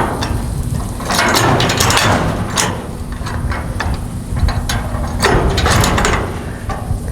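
A jack being let down under load: irregular metal clanks and ratcheting clicks from its mechanism.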